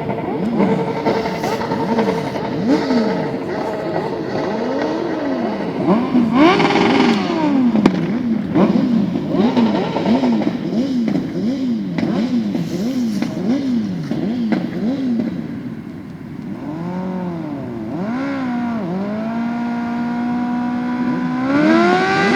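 Several off-road motorcycle engines revving up and down over and over, their notes overlapping. Near the end one engine holds a steady note, then revs up higher.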